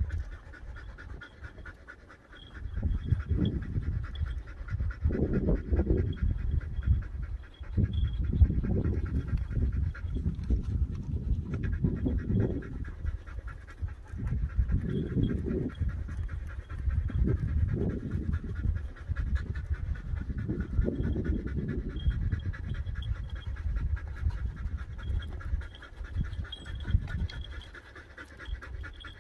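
Podenco canario hunting dog panting hard and fast, in repeated bouts of heavy breathing.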